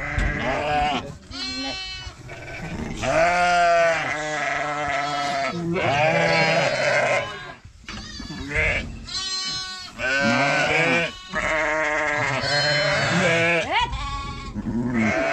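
A crowded flock of sheep and goats bleating, many calls one after another and often overlapping.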